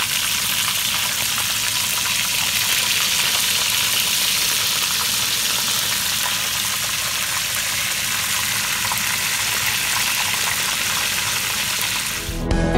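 Tempeh slices deep-frying in hot oil: a steady, even sizzle. Music comes in right at the end.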